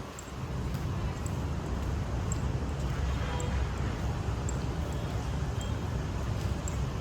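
Street traffic noise: a steady low rumble with no single event standing out, and faint light ticks about once a second.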